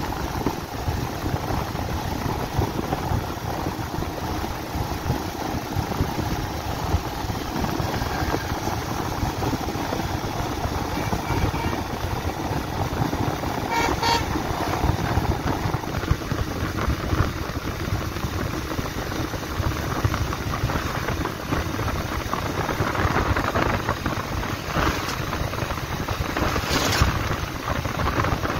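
Bajaj Pulsar 150's single-cylinder engine running under way, with wind and road noise. A short vehicle horn beep sounds about halfway through.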